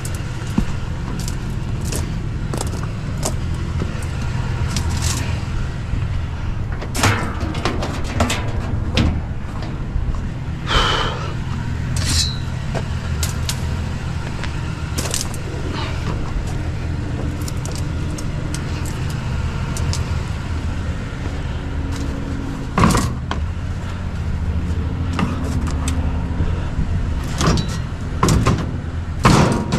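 Truck engine running steadily with a low hum, with scattered clicks, knocks and rattles over it.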